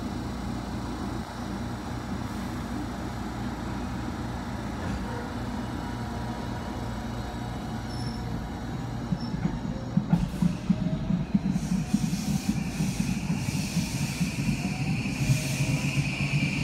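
JR Kyushu 821 series electric multiple unit standing with a steady low hum, then pulling away about ten seconds in: its inverter-driven traction motors give a rising whine over growing wheel and rail noise as it gathers speed.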